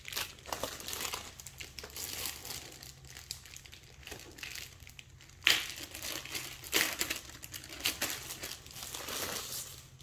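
Thin clear plastic bag crinkling and rustling in irregular bursts as it is pulled open and off a laptop, loudest about five and a half seconds in.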